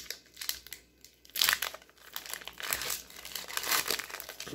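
Foil Pokémon booster-pack wrapper crinkling and crackling in the hands as it is opened and the cards are drawn out, loudest about a second and a half in.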